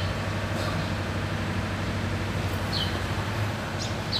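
A steady low mechanical hum, with a few short, high chirps that fall in pitch.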